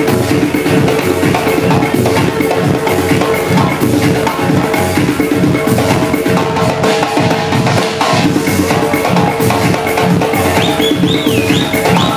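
A hand drum played live in a rhythmic pattern over loud club music from the DJ decks. A high, wavering tone comes in near the end.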